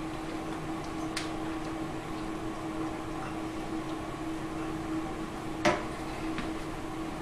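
Metal handling on a drill press's pulley head as the belt is shifted for a slower speed: a light click about a second in and one sharp metallic clunk near six seconds, over a steady background hum.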